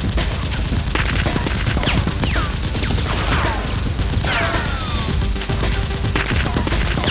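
Dense, continuous burst of dubbed gunfire sound effects, shot after shot, with repeated short falling whistles like ricochets, over a backing music track.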